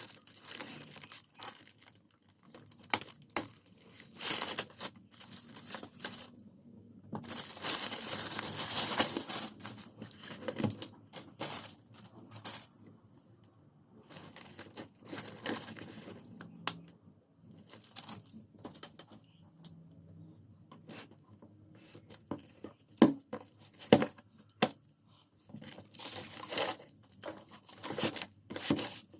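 Packaging being torn open and handled while unboxing a welding machine: tearing and crinkling in irregular bursts, the longest a few seconds in the middle of the first half, with a couple of sharp knocks about two thirds of the way through.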